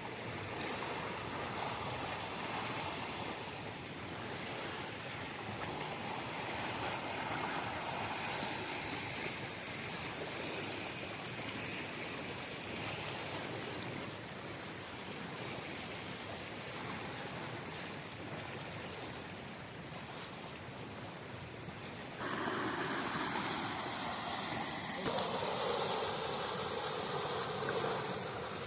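Steady rushing of stream water. It turns suddenly louder and fuller about two-thirds of the way through.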